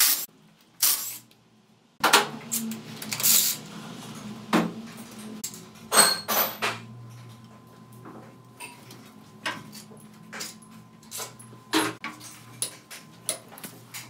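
A cordless power driver runs in two short bursts, driving bolts into an aluminium transmission case. After that comes a run of sharp metallic clicks and knocks as parts and tools are handled on the case.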